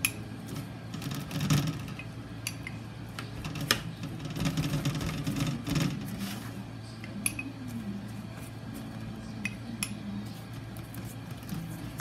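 Pastry brush clinking against a glass of melted butter and dabbing butter onto soft pretzel knots on metal sheet pans: a few sharp, irregular clicks with soft brushing between them.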